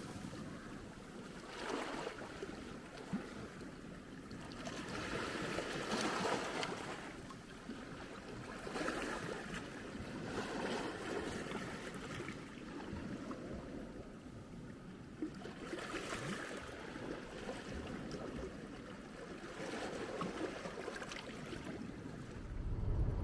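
Small Black Sea waves washing up a pebble beach and drawing back, swelling and fading every few seconds.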